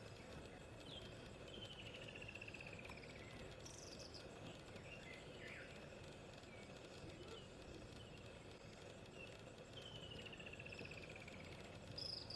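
Faint open-air ambience with small birds calling: a falling trilled phrase heard twice, about eight seconds apart, among scattered short chirps.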